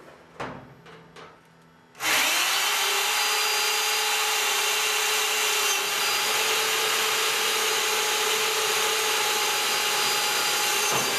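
A power drill starts suddenly about two seconds in and runs at a steady pitch for about nine seconds, drilling a pop-rivet hole through a sheet-steel trunk floor pan, then winds down near the end. A few light knocks come before it.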